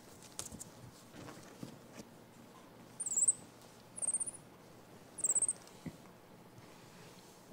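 Baby cinnamon capuchin monkey giving three short, very high-pitched squeaks about a second apart, each sliding slightly down in pitch, with faint rustling of small movements on the bedding.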